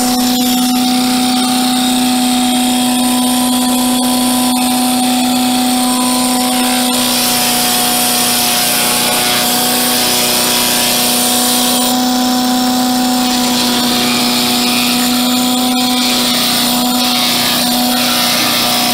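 Gas chipper shredder with a 212 cc OHV engine running at a steady, constant speed while green sunflower stalks are fed into its chute and chopped, with a few sharp cracks.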